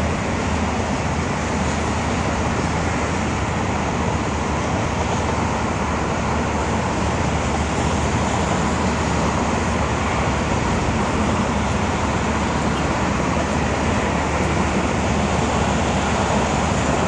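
Steady highway traffic noise from cars on a busy expressway, an even wash with no single vehicle or event standing out.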